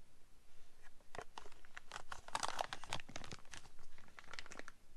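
Clear plastic bag crinkling as sunglasses wrapped in it are lifted out of a hard glasses case: a dense run of crackles starting about a second in, busiest in the middle, dying away just before the end.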